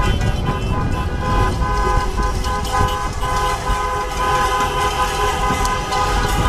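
Many car horns honking together, their steady tones overlapping, over the low rumble of street traffic.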